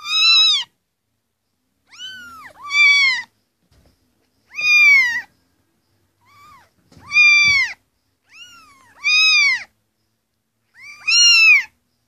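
Young grey kittens meowing in turn: high, thin meows that rise and fall in pitch, a loud one about every two seconds, with fainter meows from other kittens in between and sometimes overlapping.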